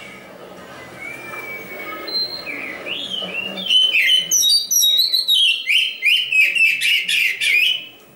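Black-breasted oriental magpie-robin (kacer) singing a varied song of whistles and quick trills. It starts faint, grows loud about three and a half seconds in, and stops just before the end.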